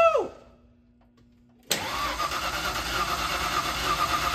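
Starter motor cranking the 1988 Ford E-150's 5.0 V8, cutting in abruptly about two seconds in and running steadily with a fast, even pulse. Before it, a short whine rising and falling in pitch fades out into near silence.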